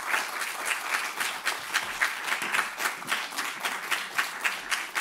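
Audience applauding, a dense, steady run of hand claps.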